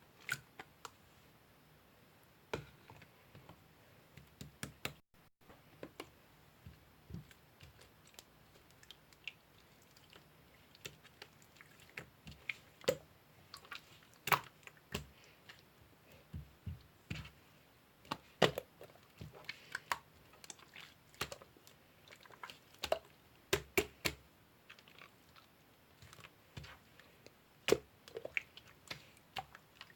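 Irregular small clicks and taps close by in a small room, one to a few a second with short pauses between.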